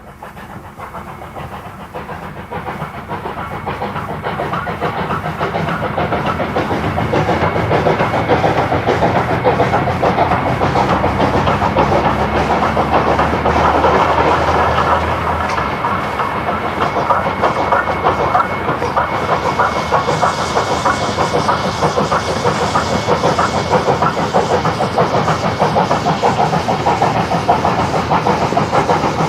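South Australian Railways Rx-class 4-6-0 steam locomotive working hard up a grade, its exhaust beats coming fast as the driving wheels slip. It grows louder over the first several seconds, heard from a car window running alongside.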